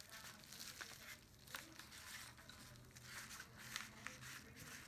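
Faint rustling and crinkling of a padded paper mailer under gloved hands, with a few light clicks as small airsoft pistol parts are handled.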